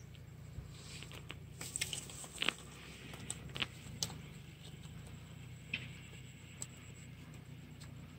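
Rustling and handling of a wet nylon mesh fish bag in grass, with a scatter of short crackles and clicks, the loudest about two and a half seconds in.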